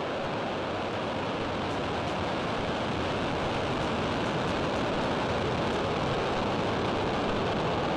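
Falcon 9 rocket's nine Merlin first-stage engines at full thrust just after liftoff: a steady, dense rumbling hiss that grows slightly louder.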